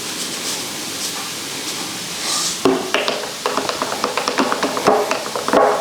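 A spoon stirring salt into salsa in a container, with quick clinks and scrapes against the sides from about a third of the way in, over a steady frying sizzle.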